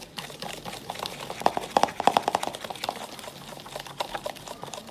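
Wire whisk stirring dry flour in a plastic bowl: a fast run of scratchy clicks as the wires scrape and tap the bowl, loudest about two seconds in.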